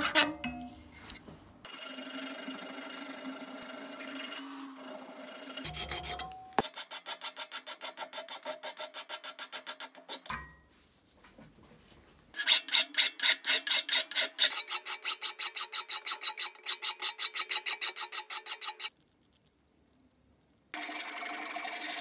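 Hand file rasping on the rusty steel parts of an old shotgun-shell crimp press held in a vise, in quick back-and-forth strokes of about four a second. The strokes come in several runs separated by short pauses.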